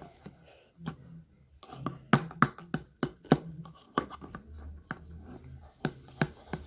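A flat stick stirring a thick slime mixture in a plastic cup, knocking and scraping against the cup's sides in a run of irregular clicks and taps.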